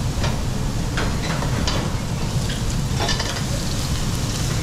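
Food sizzling as it fries in a pan, stirred with a utensil that clinks against the pan several times.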